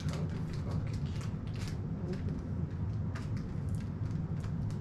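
Steady low room hum, with scattered small clicks and crinkles as breakfast food is handled and eaten.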